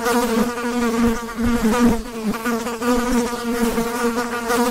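Fly buzzing its wings: one continuous buzz whose pitch wavers slightly, with a few brief dips.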